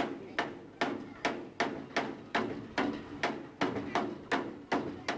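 Hammer blows on the steel gate in a steady rhythm, about two and a half strikes a second, each blow ringing briefly.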